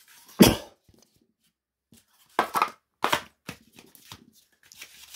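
Cardboard perfume carton being unfolded by hand: a sharp snap about half a second in, then a few shorter scrapes and knocks of the card.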